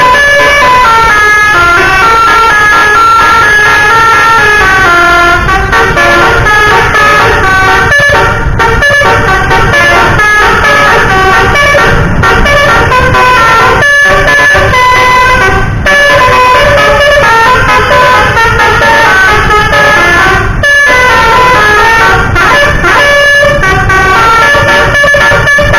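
Bus 'telolet basuri' multi-note air horn playing a melody: a long, very loud run of held horn notes that step up and down in pitch, several sounding together, broken by a few brief gaps.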